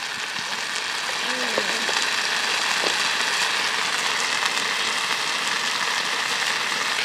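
Bacon sizzling in a frying pan over a small wood-burning folding stove: a steady frying hiss that builds over the first couple of seconds, then holds, with faint pops.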